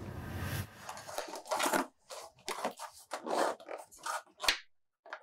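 Metal forks scraping and picking at pasta in aluminium foil takeout trays: a run of short scrapes and rustles, ending in a sharp clink about four and a half seconds in.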